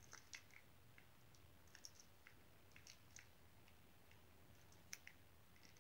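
Faint, irregular sticky clicks and squelches of slime being pushed by fingers into the neck of a rubber balloon, about a dozen small clicks scattered through, the sharpest one near the end.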